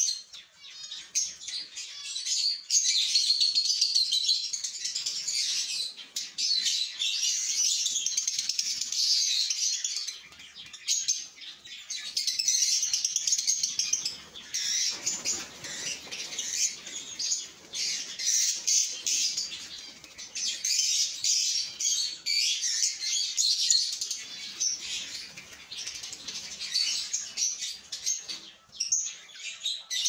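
Blue masked lovebirds chattering in a nest box, a dense, rapid, high-pitched twittering that goes on almost without a break. About halfway through a lower rustling scrape joins in, as the wooden nest box is handled.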